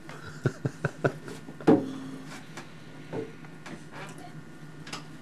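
A quick run of sharp knocks and clunks, the loudest about a second and a half in, followed by a few scattered taps.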